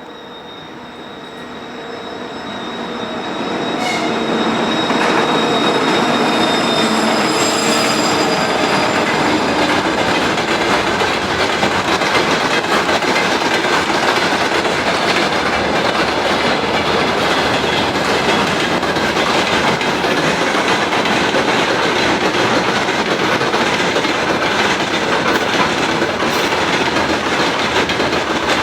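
2TE116 twin-section diesel locomotive approaching with the whistle of its turbochargers heard as several steady high tones, growing louder over the first few seconds. Then the loaded freight train rolls past with a steady rumble of wheels and clatter over the rail joints.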